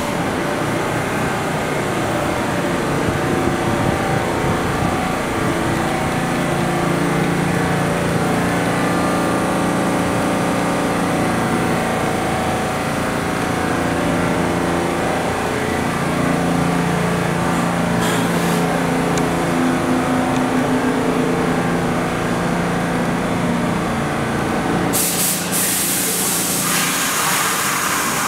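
R62A subway train pulling out along the platform, its traction motors running with steady tones that shift in pitch as it gathers speed. A loud hiss comes near the end.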